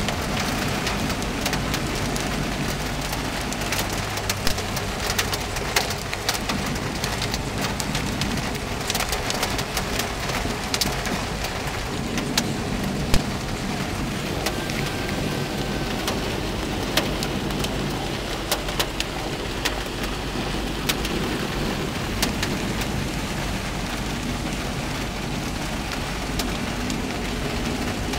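Heavy rain pelting a car's roof and windshield, a dense steady hiss dotted with many sharp ticks of individual hits, over the low hum of the moving car.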